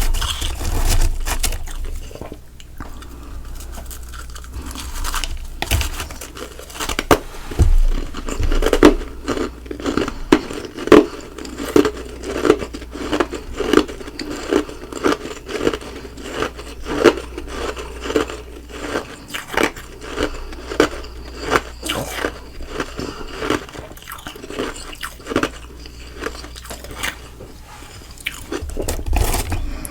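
Close-up crunching and chewing of ice and freezer frost in the mouth, with a steady run of chews at about two a second through the middle.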